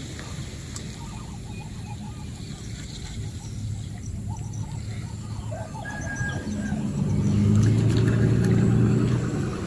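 A motor's steady hum that grows louder over several seconds, is loudest near the end, then fades, like an engine passing close by. A few faint bird chirps can be heard over it.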